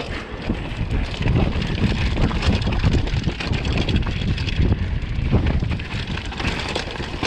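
Mountain bike descending a rocky trail: tyres and frame clattering over rocks in a steady stream of knocks, with wind rushing on the microphone.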